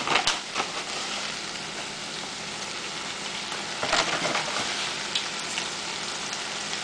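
Orange chicken in sauce sizzling in a stainless-steel skillet: a steady frying hiss, with a few light clicks near the start and again about four seconds in.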